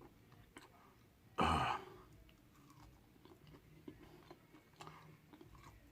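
A person chewing a coated fried tofu nugget at close range, with one louder, brief crunch about a second and a half in and faint mouth clicks otherwise.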